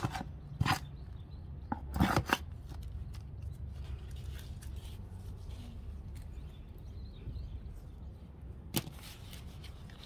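Garden trowel scraping and scooping through potting soil in a plastic tray, with a few sharp scrapes and clicks in the first two and a half seconds and a single knock near the end. A steady low rumble runs underneath.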